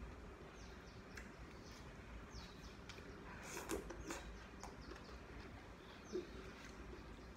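Udon noodles being slurped in through the lips, loudest about halfway through, with a short knock near the end. Faint, short, high falling chirps come and go in the background.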